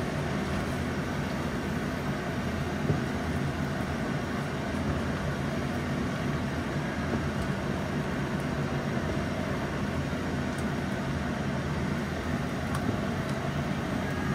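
Steady stir-fry cooking noise: tofu skin and peppers sizzling in a nonstick wok as a spatula stirs them, over a pot of water boiling beside it. A single sharp knock of the spatula about three seconds in.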